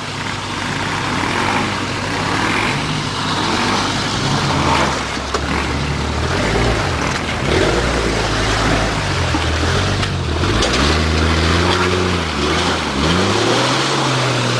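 Jeep Cherokee XJ's engine revving up and down repeatedly under off-road load, over a steady hiss. The revving starts about four seconds in and surges several times toward the end.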